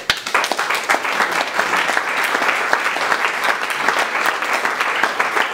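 Audience applauding, many hands clapping densely; it starts suddenly at the close of a speech line.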